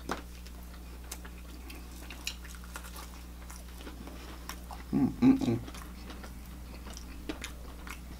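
Quiet chewing and small mouth clicks over a steady low hum, with a brief louder low sound about five seconds in.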